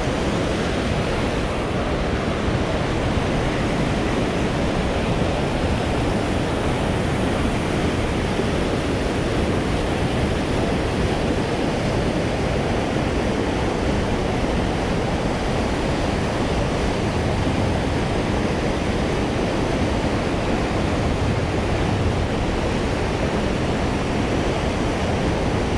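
Steady rushing of river water pouring over a low dam and churning below it, an even, unbroken roar.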